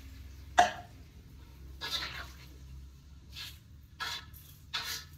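A plastic cup set down with a sharp knock about half a second in, then a spatula scraping round a pan of tempe in a handful of short strokes.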